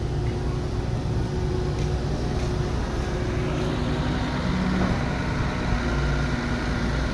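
Diesel engines of heavy construction machinery running steadily, a low rumble with a held engine note that shifts slightly partway through.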